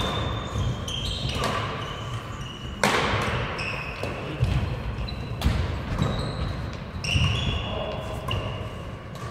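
Badminton rally: sharp racket hits on the shuttlecock, about two seconds apart, with short high squeaks of court shoes and thudding footsteps on the wooden floor.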